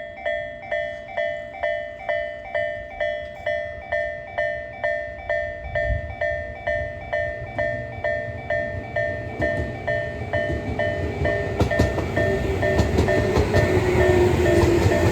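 Japanese level-crossing warning bell ringing about twice a second as a Tobu 10000 series electric train approaches. The train's rumble grows louder from about six seconds in, and wheel clacks over the rail joints start a few seconds later.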